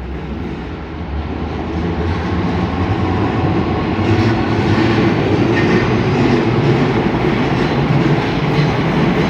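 Odakyu Line electric train running over a level crossing: the rumble and clatter of its wheels on the rails grow louder over the first four seconds, then stay loud and steady as it passes close by.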